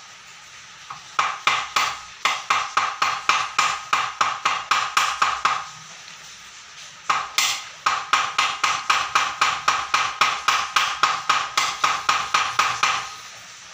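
Rapid tapping on a heated, bent aluminium extrusion rail to straighten it, about four to five ringing knocks a second. Two long runs of knocking, with a short pause of about a second and a half between them.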